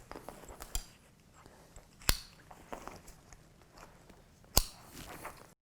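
Press-stud button clips of a child's seat harness snapping shut, three sharp snaps about one, two and four and a half seconds in, with quiet fabric and strap handling between them. The sound cuts off abruptly near the end.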